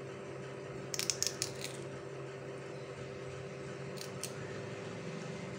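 Small, sharp, wet clicks from handling a raw spiral-cut potato on a wooden skewer as its slices are pulled apart: a quick run of several about a second in, and two more near four seconds. Under them is a steady low hum.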